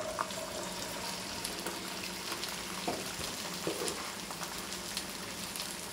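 Freshly added chopped okra frying in hot oil in a non-stick wok: a steady sizzle with scattered crackles, and a few light knocks.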